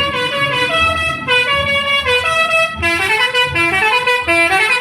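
Bus telolet horn playing a tune: several horn tones sound together and step quickly from note to note.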